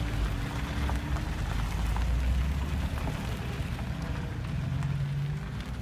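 Vintage MG T-type sports cars driving slowly past on a gravel drive: four-cylinder engines running low and tyres crackling over the gravel.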